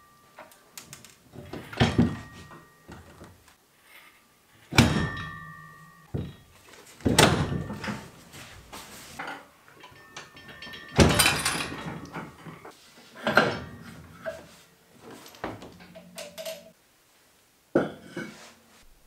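Workshop handling sounds: about half a dozen loud knocks and clanks at irregular intervals, several with a brief metallic ring, as tools and parts are handled around the engine and hull.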